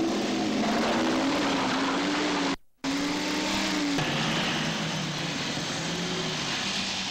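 Car engine running under a steady rushing noise, its low hum wavering in pitch. The sound drops out for a moment about two and a half seconds in, and the hum settles lower after about four seconds.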